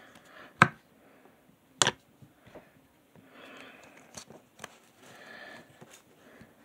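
Pokémon trading cards being handled and flipped through: two sharp clicks in the first two seconds, scattered light ticks, and two soft sliding rustles of card against card.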